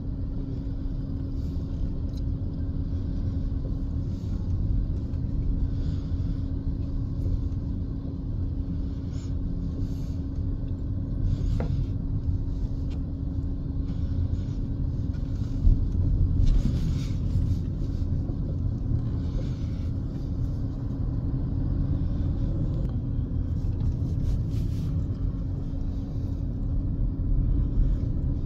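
Low, steady rumble of a car driving slowly, heard from inside the cabin, with a constant hum under it. A single short thump comes about sixteen seconds in.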